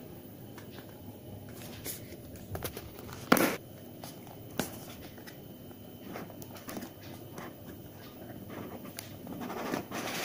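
Hands handling a cardboard smartphone box while breaking its seal and opening it: scattered small clicks and rustles of the box, with one sharp tap about a third of the way in and a longer rustle near the end.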